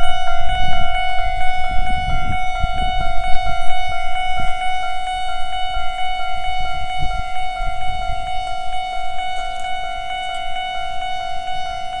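Japanese railway level-crossing warning bell: an electronic ding that repeats rapidly and evenly at one pitch while the crossing is closed. Wind buffets the microphone during the first few seconds.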